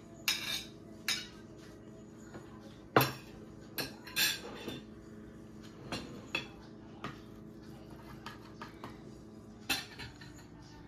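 Cutlery and plates clinking with scattered sharp clicks as a meal is eaten, the loudest clank about three seconds in.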